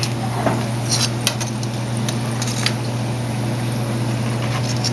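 Corn tortillas frying in shallow vegetable oil with a steady sizzle over a constant low hum, while metal tongs click sharply against the pan a few times in the first three seconds as a taco shell is turned and lifted out.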